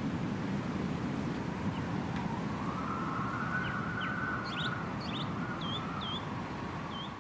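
Drone motors whining over a steady rushing noise, the whine rising in pitch around the middle and falling back as the throttle changes. Short high chirps sound in the second half.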